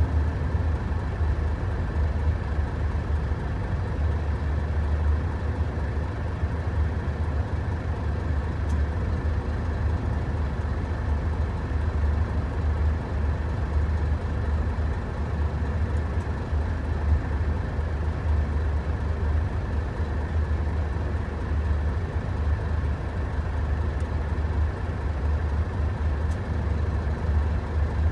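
Hino Profia heavy truck's diesel engine idling steadily, heard from inside the cab as a low, even hum.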